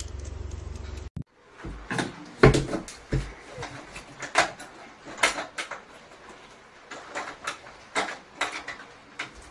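Metal barrel-bolt door latch clicking and rattling as a hand fumbles at it, with irregular knocks against the door, loudest a couple of seconds in. A steady low hum runs for the first second before the sound changes.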